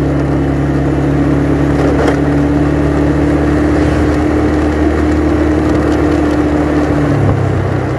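The rider's own motorcycle engine running steadily while cruising along a street, with road and wind noise. Its note changes about seven seconds in.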